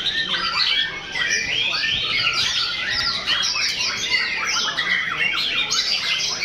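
Several white-rumped shamas (murai batu) singing at once: a dense, unbroken tangle of fast whistles and chirps.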